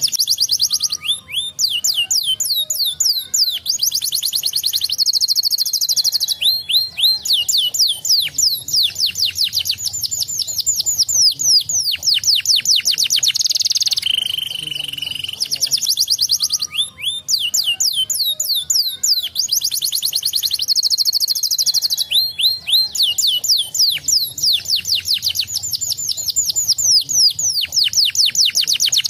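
Domestic canary singing a long, fast song of rolling trills: rapid series of quick downward-sweeping whistled notes at changing speeds, broken by short buzzy rolls. The same run of phrases starts over about halfway through.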